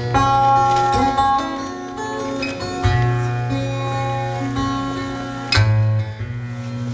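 Solo acoustic guitar played fingerstyle: ringing melody notes over a sustained low bass note, with one sharp percussive hit about five and a half seconds in.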